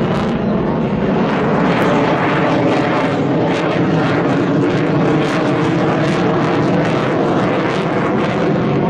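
Military display aircraft flying low, a loud steady engine sound with a pitched drone and a rapid crackle running through it.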